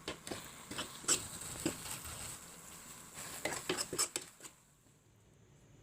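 Irregular clinks and scrapes of a utensil against a pan while instant fried noodles are stirred over the heat. The clinks stop about four and a half seconds in.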